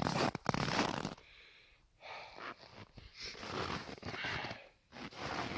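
A person breathing heavily, about four noisy breaths roughly a second apart, after a rustling, scraping stretch in the first second.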